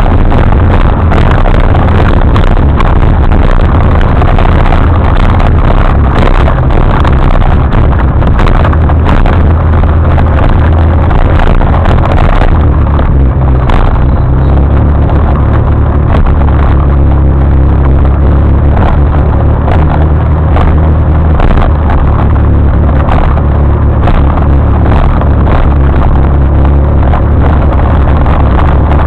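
Loud, steady wind rush over the microphone of a camera on a moving motorcycle, with the motorcycle's engine running underneath.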